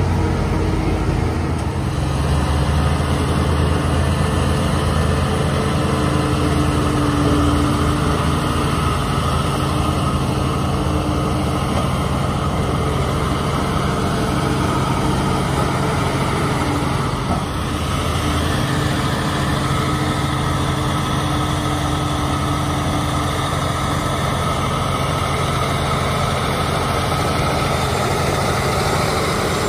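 A large John Deere four-wheel-drive tractor's diesel engine running steadily under load as the tractor pushes chopped silage up a pile with its front blade.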